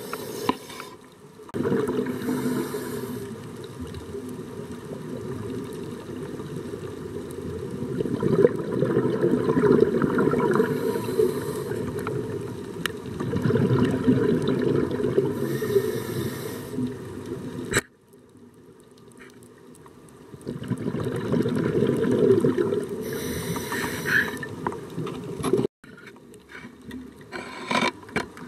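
Underwater ambience picked up through a camera housing: a steady low rushing of water with fine crackling and several short bursts of hiss. It drops out abruptly a few times.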